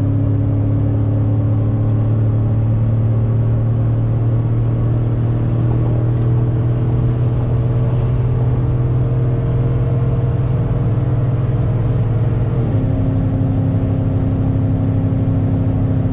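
Cammed 2013 Chevrolet Silverado with a Stage 2 BTR cam and cat-deleted aftermarket exhaust accelerating hard under full throttle in a rolling pull from 75 mph, heard from inside the cab. The engine note climbs steadily and shifts abruptly about thirteen seconds in as the transmission changes gear.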